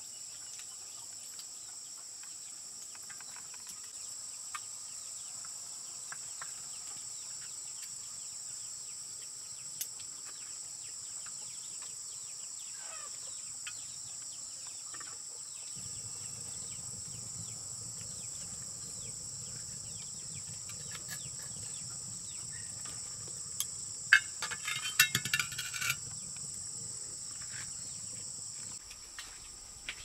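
Steady, high-pitched chorus of insects. About three-quarters of the way through there are two seconds of sharp clicks and light clatter.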